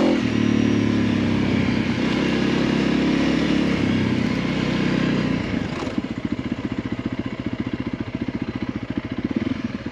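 Motorcycle engine running steadily, then dropping to idle about six seconds in, with a fast, even pulsing.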